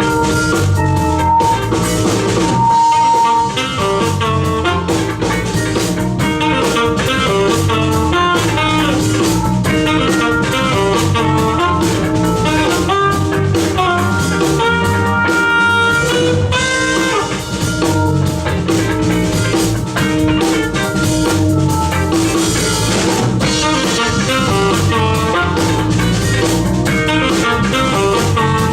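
Band playing instrumental jazz-fusion with a drum kit and electric guitar.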